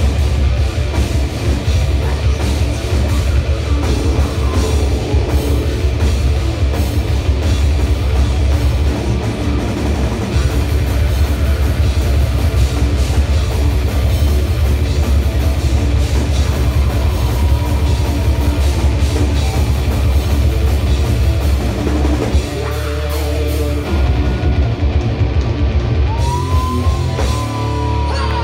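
Heavy metal band playing live: distorted electric guitars, bass and a drum kit, loud and heavy in the bass as heard from the crowd. The bass and drums drop out briefly about three-quarters of the way through, then come back in.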